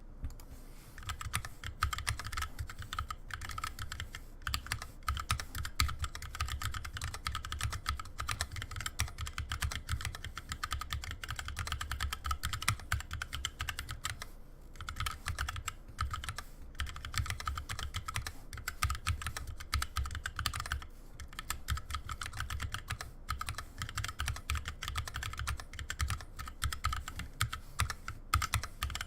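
Continuous fast typing on a mechanical keyboard with Kailh Cream linear switches, R1 OEM keycaps and a 3D-printed Ping28 Alpha case: a dense run of key clacks, each with a low thud, pausing briefly about halfway and again about two-thirds of the way through.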